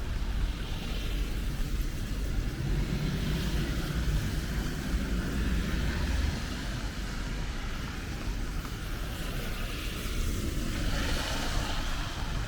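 Wet-street city traffic in the rain: a steady low rumble of vehicles with tyre and rain hiss, the hiss swelling briefly near the end.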